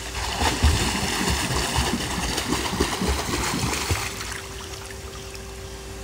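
A swimmer's kicking and arm strokes splashing through pool water. The splashing stops about four seconds in, when she reaches the wall and stands.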